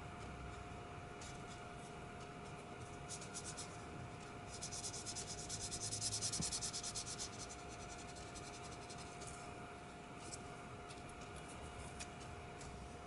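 Felt-tip marker scratching back and forth on paper as an area is coloured in: quick, even strokes, loudest in the middle few seconds, with lighter scattered strokes before and after.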